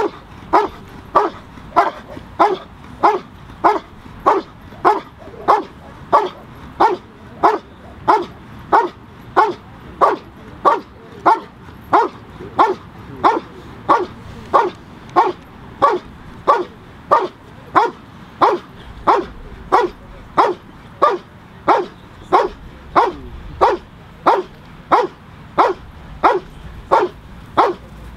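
Belgian Malinois barking steadily and rhythmically at a helper standing in a blind, a little under two barks a second without a break: the bark-and-hold of IGP protection work, the dog guarding the cornered helper.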